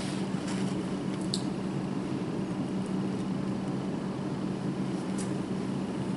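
Room tone: a steady low hum, with a faint tick or two.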